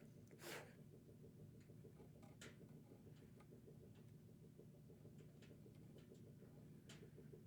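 Near silence over a low steady hum, with a few faint clicks and taps of small parts being handled, the loudest about half a second in.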